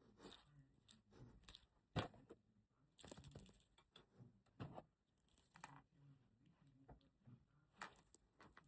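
Quiet handling sounds from unboxing a Pop Mart Baby Three blind box: scattered small clicks and short rustles, with light metallic jingling.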